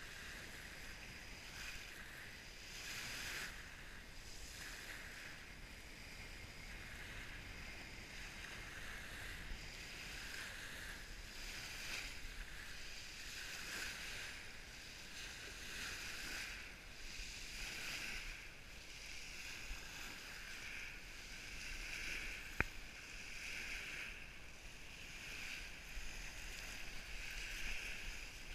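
Small waves lapping and washing over a pebble beach, a hiss that swells and fades every second or two. A single sharp click comes late on.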